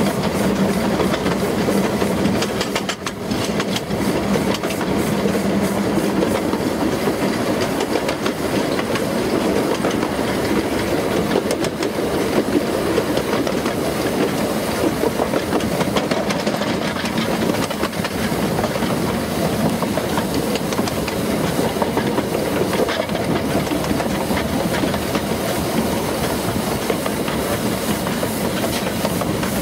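Baldwin 4-6-0 tank steam locomotive WD778 running, heard from its footplate: steady steam hiss and exhaust mixed with the clicking of the wheels over the rail joints. A steady low tone runs through the first six seconds or so, then stops.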